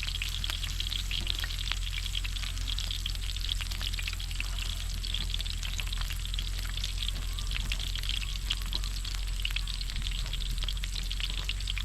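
Pork belly sizzling in a hot pan, a steady hiss with dense fine crackles, over a steady low hum.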